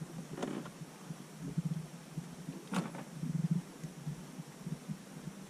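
Small waves lapping and slapping against the hull of a small boat, with soft low thumps throughout and two sharper knocks, about half a second and about three seconds in.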